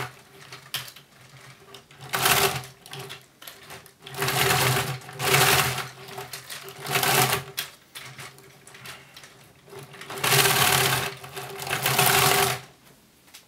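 Plastic LEGO Technic steering mechanism and rubber-padded tracks rattling and scraping against a tabletop as the roof-mounted steering knob is worked back and forth, in about six short bursts. The steering is stiff on this tracked model and is hard to turn.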